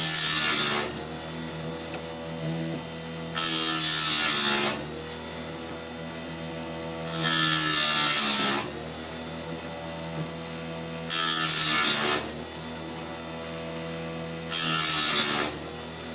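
Chicago Electric electric chainsaw sharpener, converted to sharpen a bandsaw blade, runs with a steady motor hum while its grinding wheel is lowered onto the blade five times. Each pass is a loud, harsh, high grinding lasting about a second, roughly every three and a half seconds, as it grinds one tooth after another.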